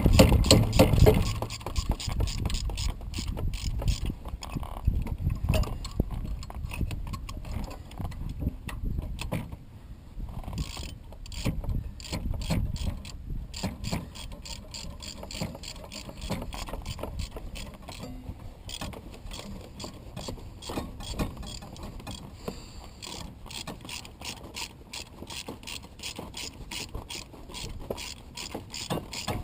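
Hand ratchet wrench clicking in quick, even runs with brief pauses, tightening fasteners under the hood.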